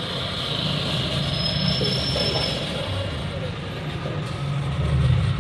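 Steady low rumble and hiss of busy background noise, with voices in the background and a brief high tone about a second in.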